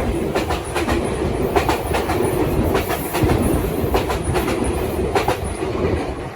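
Sotetsu Main Line electric train running through a level crossing: a steady rolling rumble with wheels clacking over rail joints, often in quick pairs, easing slightly near the end.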